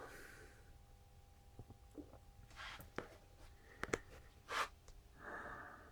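Faint handling noises: a few scattered small clicks and short rustles, as the oscilloscope's parts are handled and shifted.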